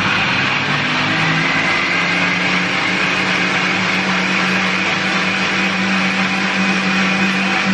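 Electric blender running steadily at speed, puréeing a watery sauce of fermented red bean curd, garlic and vinegar.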